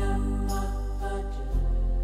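Background music: slow, sustained new-age style chords over a deep bass, shifting to a new chord about one and a half seconds in.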